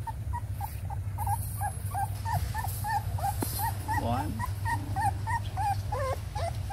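Young puppy whimpering in a long run of short, high squeaks, several a second, with a few longer rising whines near the middle and near the end. A steady low hum runs underneath.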